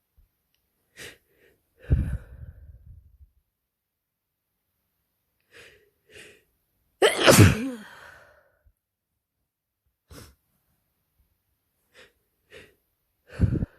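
A person with a head cold sneezing several times, the loudest a voiced sneeze about seven seconds in, with short sniffles and breaths between the sneezes.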